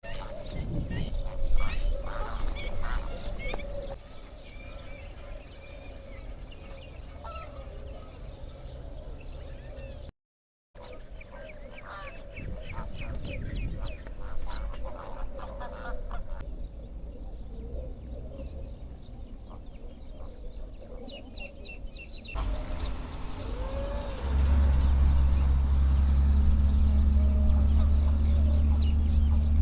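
A flock of flamingos calling with goose-like honks, many overlapping short calls. Near the end a steady low hum comes in and is louder than the birds.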